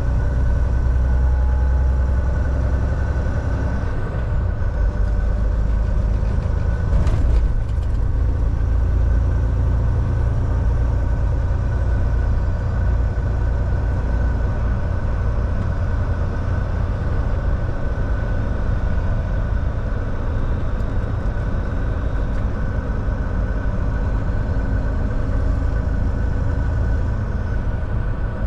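Volvo semi truck's diesel engine running with a steady low rumble, with a brief sharp knock about seven seconds in.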